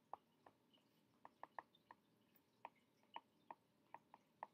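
A stylus tip tapping on a tablet screen while words are handwritten: a string of faint, irregular short clicks.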